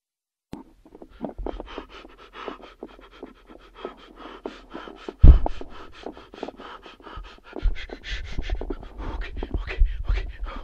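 Rapid, heavy panting close to a phone's microphone, with low rumbling handling noise and a single loud thump about five seconds in.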